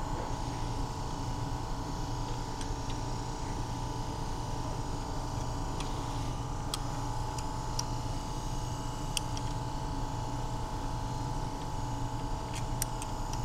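Steady hum of an electric motor turning the Sherman diesel's fuel pump on a test rig, pushing fuel through the lines to bleed out air. A few light clicks of a wrench on the injector fuel-line fittings sound over it.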